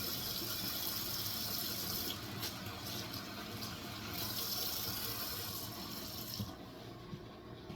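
Kitchen tap running water into a sink, a steady rush that is turned off about six and a half seconds in.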